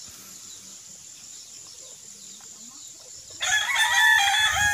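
A rooster crowing once near the end, one long call after a few quiet seconds.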